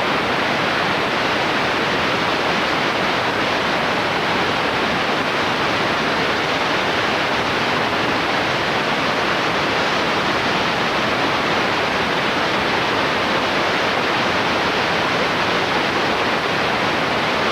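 Steady, even hiss of static, unchanging in level throughout, with no engine tone or voices in it.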